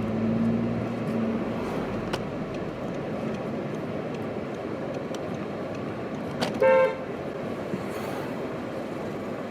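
Steady street traffic noise with one short car horn toot about six and a half seconds in.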